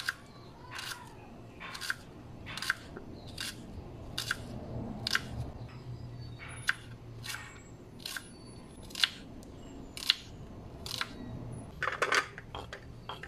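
Kitchen knife slicing a red onion on a wooden chopping board: slow, single cuts about once a second, each ending in a sharp knock of the blade on the board. Near the end a quick flurry of scrapes and knocks as the slices are pushed off the board into a plate.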